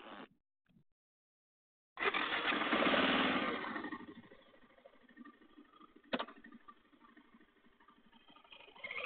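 Motorcycle engine running with the bike standing still: it comes in suddenly about two seconds in, loudest for the first second or so, then settles to a quieter steady idle. A single sharp click about six seconds in.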